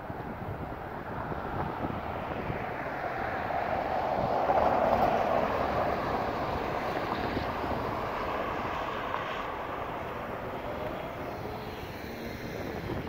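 City street traffic: a passing vehicle's noise swells to a peak about four seconds in, then slowly fades back into the general traffic din.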